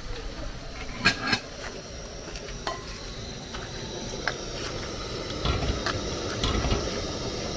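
A metal spoon stirring in a cooking pot, clinking against the pot now and then, over a steady hiss.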